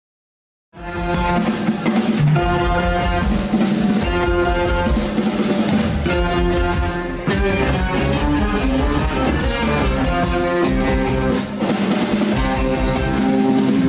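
Rock band playing with drum kit and guitar. The music starts abruptly just under a second in and keeps going at full level.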